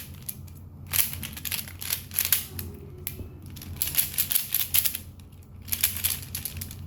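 Plastic pieces of a Pyraminx puzzle clicking as it is twisted by hand, in several short runs of rapid clicks.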